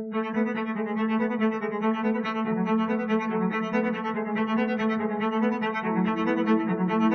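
Background music: bowed string instruments playing sustained notes over a steady pulse.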